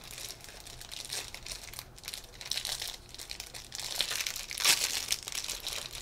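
Plastic blind-bag packets crinkling as they are handled and opened, a dense run of small crackles with a louder crackle about two-thirds of the way through.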